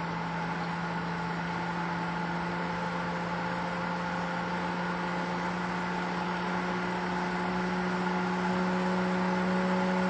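Pentair IntelliFlo VF variable-speed pool pump motor running steadily in its priming mode, a constant hum with several steady tones, slowly getting louder.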